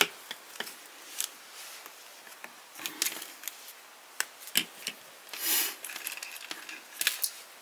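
Small plastic toy parts being handled and pulled apart, making scattered light clicks and rustles, with a slightly longer rustle about five and a half seconds in.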